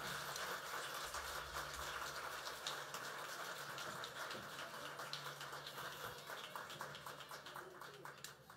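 Faint hiss with scattered soft crackles and a low steady hum, slowly fading down toward the end.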